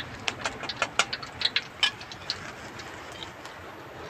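Banana fritters (pisang goreng) frying in hot oil in a wok over a wood fire: quick crackles and pops, dense for the first two seconds, then thinning out.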